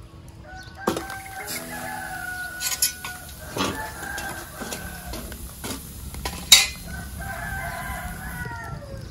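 A rooster crowing twice, each crow about two seconds long, the second trailing off downward at its end. Between them come a few sharp clanks of metal cookware, the loudest about six and a half seconds in.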